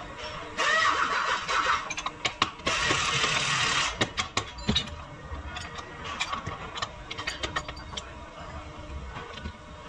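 Workshop tool noise: two loud hissing bursts of a power or air tool, each about a second long, then scattered clinks and knocks of metal tools and parts.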